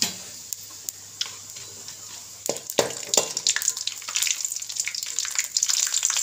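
Whole spices (fennel seeds, bay leaves, cinnamon, cloves, cardamom, star anise) spluttering and crackling in hot sesame oil, stirred with a steel spoon. A few scattered pops at first, then the crackling grows dense and louder from about two and a half seconds in: the tempering is reaching the crackle that tells the cook it is ready for the onions.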